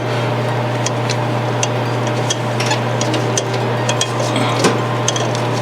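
Light, irregular clicks and taps of steel head bolts and tools being handled as cylinder head bolts are threaded in by hand, over a steady low hum.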